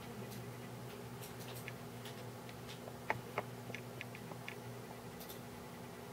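Quiet room tone: a low steady electrical hum with scattered faint ticks, and two clearer clicks about three seconds in.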